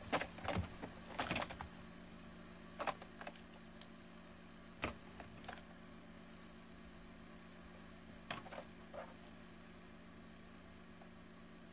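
Computer keyboard keys clicking in short irregular runs, a few keystrokes at a time with pauses between, over a steady low hum.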